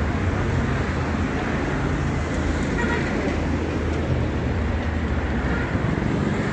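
Steady road traffic: cars, a motorbike and a small truck passing, a continuous low rumble of engines and tyre noise.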